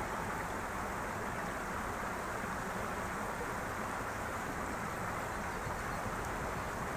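Steady rushing of a small brook flowing over and around a brushwood snag.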